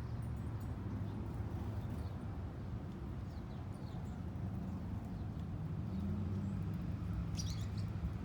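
Small birds giving short, high, falling chirps, scattered through and bunched in a quick cluster near the end, over a steady low rumble.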